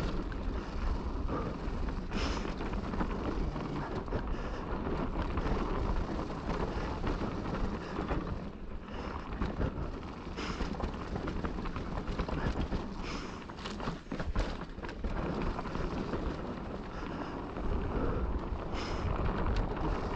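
Mountain bike riding down a dirt trail: a steady rumble of tyres and wind on the microphone, broken by several sharp knocks and rattles as the bike hits bumps.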